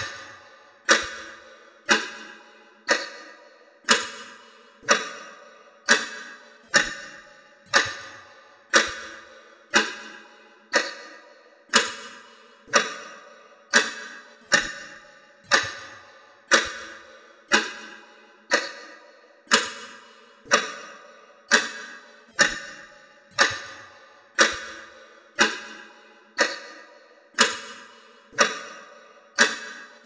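A clock ticking steadily, about one tick a second, each tick sharp with a short ringing tail.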